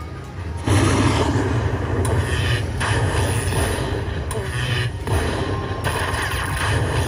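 Lightning Link slot machine's win celebration, a loud, dense burst of sound effects that starts suddenly under a second in while the win amount counts up, over a steady low casino hum.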